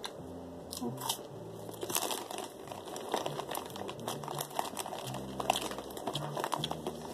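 Plastic Cheetos Popcorn snack bag crinkling as it is handled and moved, a rapid irregular crackle.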